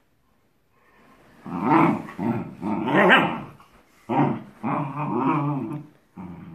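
Dogs play-growling: after about a second of quiet, a run of growls with wavering pitch starts about a second and a half in, in two bouts split by a short pause about four seconds in.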